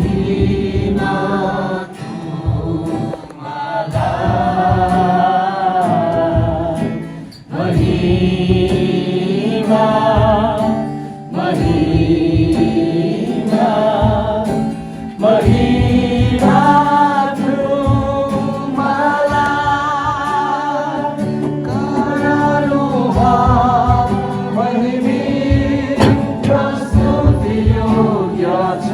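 Voices singing a Christian worship song over a steady sustained accompaniment, the melody wavering with vibrato and pausing briefly between phrases.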